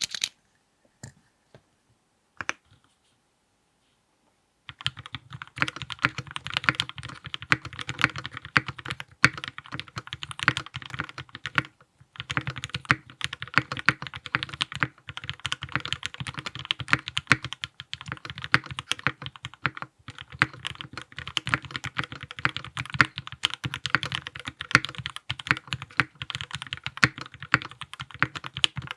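Typing on a King Keyboards Monarch 65% mechanical keyboard with Gateron Robin switches, a burger-mounted brass plate, GMK Classic Blue keycaps and case foam fitted. A few single keystrokes, then steady fast typing from about five seconds in, with a few brief pauses.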